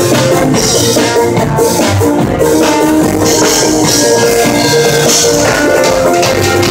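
Live band playing: a trombone holds long notes over strummed acoustic and electric guitars and a steady drum kit and percussion beat.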